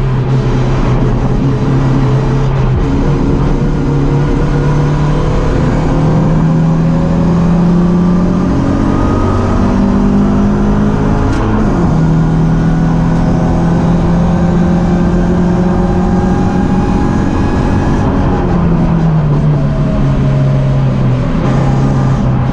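BMW 318ti Cup race car's four-cylinder engine running hard under load. Its pitch climbs slowly, drops sharply at a gear change about halfway through, and steps again near the end, over steady wind and tyre noise.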